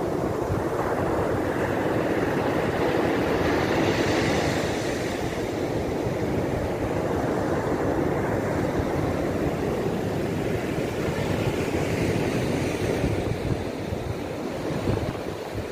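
Rough sea surf breaking and washing up a sandy beach, a continuous roar of waves that swells about four seconds in and again around twelve seconds. Wind buffets the microphone underneath.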